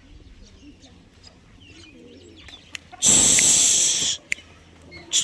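Faint, wavering bird cooing, then a loud hissing burst about three seconds in that lasts about a second, and another begins at the very end.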